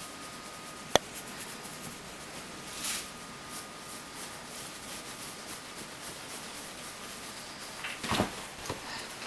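Quiet room hiss with a faint steady whine, broken by one sharp click about a second in. Near the end, a quick cluster of thumps and scuffs as a cat leaps across a wooden floor.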